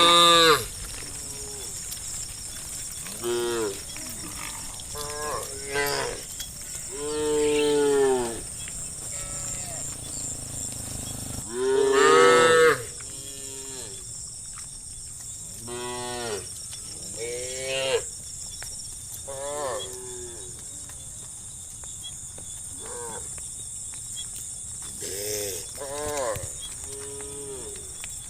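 Herd of cattle mooing: many short calls one after another, some overlapping, every second or two, the loudest near the start, about eight seconds in and about twelve seconds in. A steady high-pitched hiss sits behind them.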